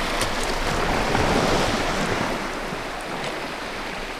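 Small sea waves washing onto a pebble beach, a steady hiss with a few faint clicks.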